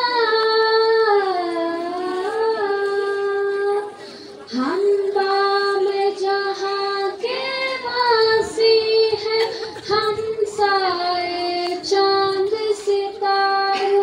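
Young girls singing an Urdu song into microphones, a single melodic line of long held notes with short breaks between phrases.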